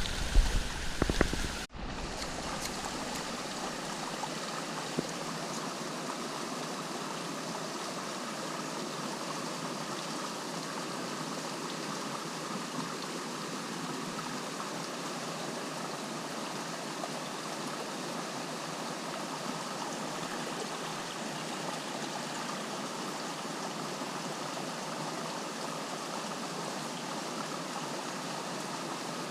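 River water running steadily over stones, an even rushing. It is preceded by a couple of seconds of louder, uneven noise that cuts off abruptly.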